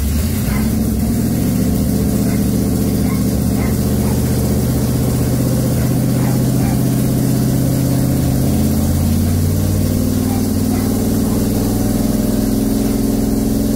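LS V8 engine in a swapped 1996 Camaro running steadily; its pitch shifts slightly about eight seconds in.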